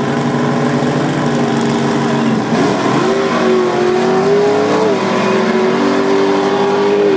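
Drag-racing police cars' engines at full throttle as they launch down the strip; the engine note climbs and then drops at a gear change about five seconds in.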